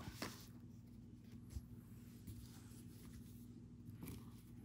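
Faint handling of trading cards: a few soft ticks and rustles over a low steady hum.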